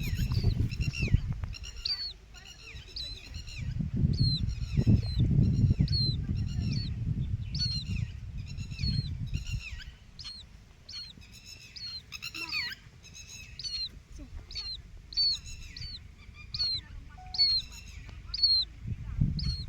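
Red-wattled lapwings calling: a steady run of short, sharp, down-slurred notes, a few each second, over a low rumble on the microphone that is heavier in the first half.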